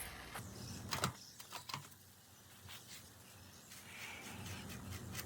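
Scattered light clicks and knocks, a few in the first two seconds and a couple later, from handling a bicycle tire and inner tube as they are fitted back onto the wheel rim.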